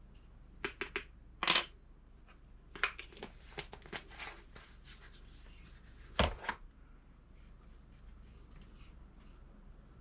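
Shotshell reloading components and tools being handled on a bench: a few light clicks, scratchy rustling, and one solid knock about six seconds in.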